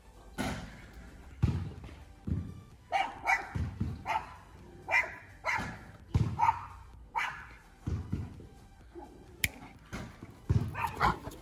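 A dog barking in a long run of short, separate barks, about one or two a second.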